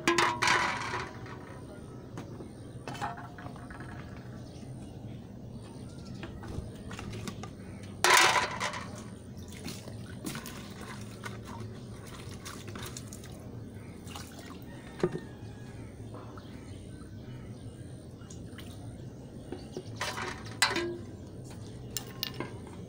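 Dishes washed by hand in a metal basin: water splashing and dripping, with aluminium pots and lids clinking against the basin. Louder splashes come at the start, about eight seconds in and again near the end.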